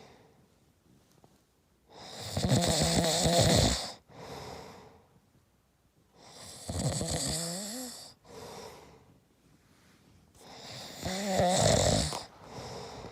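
A man snoring: three loud, rattling snores on the in-breath, about four and a half seconds apart, each followed by a softer breath out.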